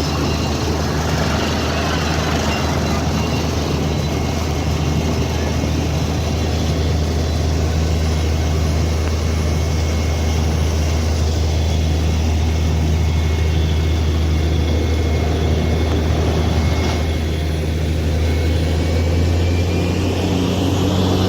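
Borewell drilling rig with its compressor running: a steady, loud engine drone with a strong low hum and a fainter high whine, which rises in pitch near the end.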